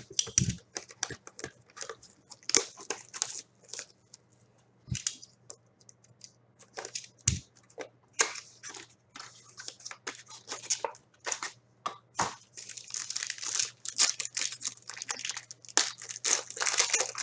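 A 2015-16 SP Game Used hockey card box and its packs being opened by hand: wrapping tearing and crinkling in irregular crackles, busiest near the end.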